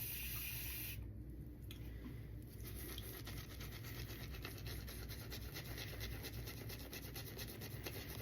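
Shaving brush worked rapidly around a lather bowl, its bristles scrubbing through thick soap paste in quick, even strokes. The brush is heavily overloaded with soap, so the lather is still a dense paste.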